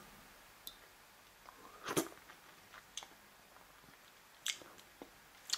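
Faint, sparse sounds of someone tasting soup: a spoon in a bowl and soft mouth sounds of sipping, a handful of brief clicks and smacks, the loudest about two seconds in.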